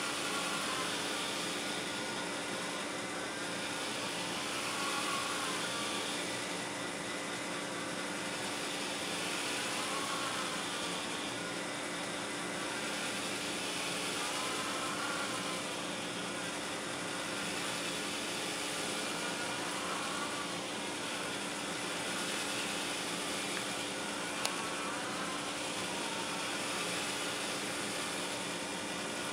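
Bicycle-chain kinetic sculpture running: a steady electric-motor hum with chains and sprockets whirring. A faint whine rises and falls about every five seconds as the mechanism cycles, and there is one sharp click late on.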